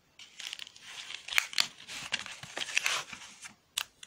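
Packaging of a wet dog food meal being handled: a cardboard sleeve and a plastic-sealed food tray crinkling and rustling in irregular bursts, with a few sharp clicks.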